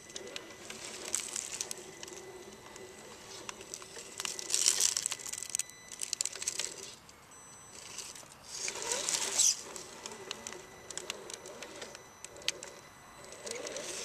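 A dove cooing in the background, while a scale RC rock crawler works over rock with scattered clicks and two louder spells of grinding and scraping, about a third of the way in and again past halfway.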